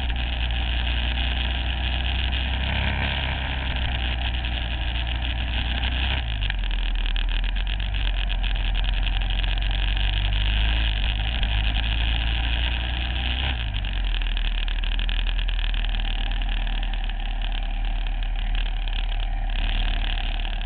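Aprilia SXV supermoto's V-twin engine running at low revs while the bike rolls slowly, heard from on board, with a steady rush of air over it. The engine note shifts about six seconds in and again about thirteen seconds in.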